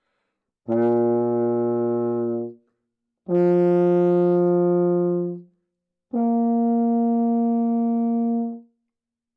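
Euphonium playing its three open notes without valves, each held about two seconds with short gaps between: low B flat, middle F, then high B flat, rising in pitch.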